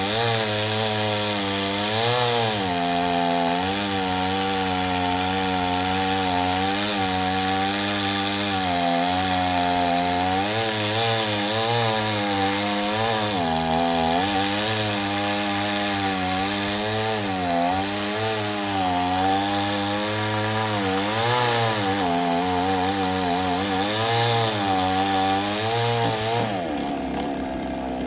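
Two-stroke chainsaw cutting wood under throttle, its engine pitch dipping and recovering again and again as the chain bites and loads. About a second before the end the revs fall away as the throttle is released.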